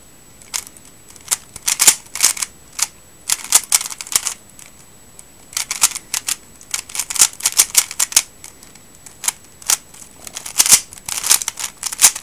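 A plastic 3x3 speedcube being turned fast during a timed speedsolve: rapid bursts of clacking layer turns, broken by short pauses of half a second to a second between them.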